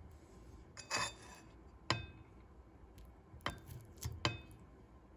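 A metal fork clinking and scraping on a porcelain plate in a handful of short, faint clicks while cutting through syrup-soaked şekerpare.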